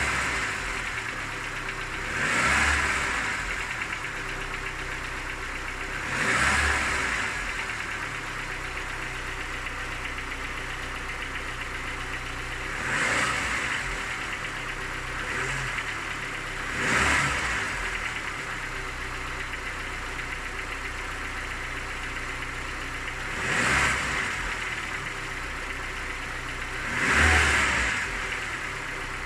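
Car engine idling, revved briefly seven times a few seconds apart, with a knock that the owner says is there when cold and fades as the engine warms to 90 °C; compression is even in all cylinders.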